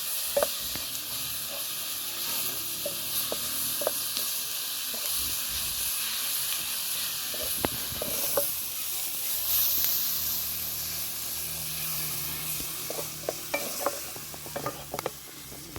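Food sizzling as it fries in a pan, a steady hiss, with the scattered clicks of a utensil stirring it and a quick run of clicks near the end.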